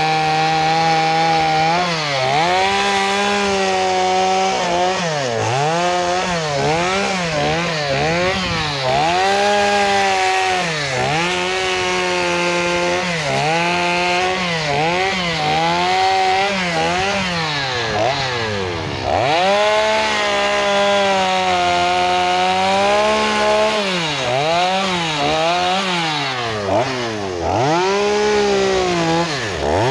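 Two-stroke chainsaw running at high revs while cutting into a log, its engine pitch dipping again and again as the chain bites into the wood and climbing back between cuts. About two-thirds of the way through, and again near the end, the revs drop much lower before picking up.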